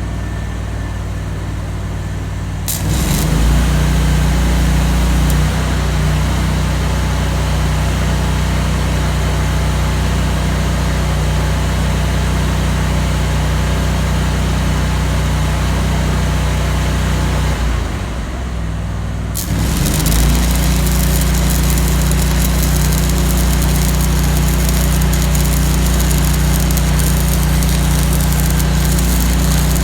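Stick-welding arc crackling and hissing as 3/16-inch 5P+ (E6010) rod burns at 180 amps on a Lincoln Ranger 250 engine-driven welder. The welder's engine runs steadily underneath and pulls down under the load. About three seconds in the arc strikes. It goes out briefly a little over halfway through, then is struck again.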